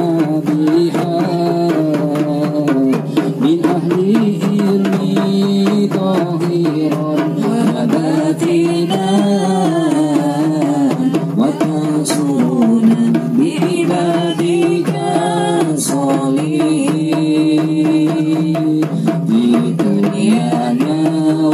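Shalawat, Islamic devotional song, sung by a group to rebana: hand-struck frame drums beating a dense, steady rhythm under the melody.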